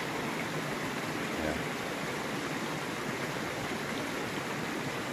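Steady rushing of running water from a river.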